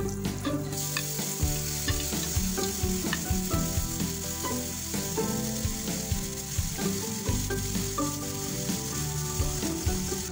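Garlic, onion and tomatoes sizzling in a hot frying pan. The sizzle grows louder and hissier about a second in, as the chopped tomatoes hit the hot oil.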